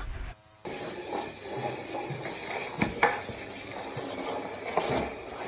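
A plant pot scraping and clattering across a tile floor as a small dog drags it, with a few sharp knocks.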